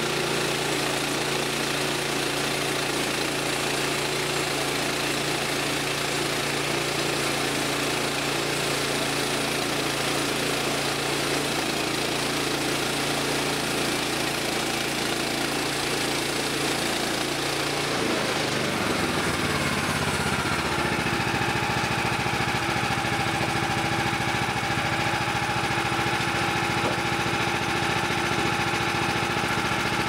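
Woodland Mills HM130 Max portable bandsaw mill running, its gas engine driving the band blade through an oak log as the saw head is pushed along the track. About eighteen seconds in, the engine note rises over a couple of seconds and settles at a higher, steady pitch.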